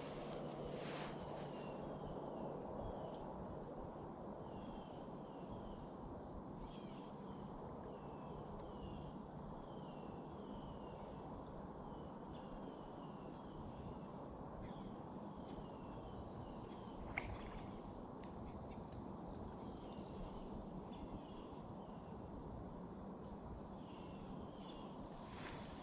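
Crickets trilling steadily at a high pitch, with repeated short chirps, over a steady low hiss. A single sharp click about seventeen seconds in.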